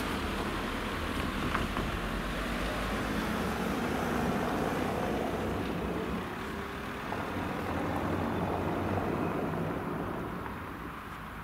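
Steady rumble of a passing vehicle, easing off near the end.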